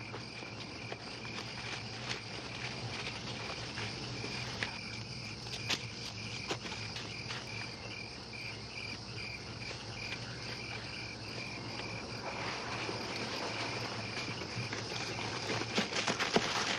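Crickets chirping steadily in a night insect chorus, with a few sharp clicks scattered through it and more of them near the end.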